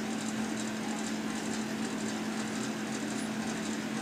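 Steady background hum with an even hiss; no distinct sound event.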